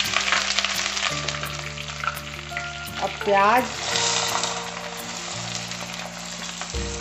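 Hot oil with cumin and green chilli sizzling in a steel kadhai. The sizzle swells about four seconds in as chopped onions go into the oil. Steady low background tones run underneath, and a brief warbling sound rises and falls about three seconds in.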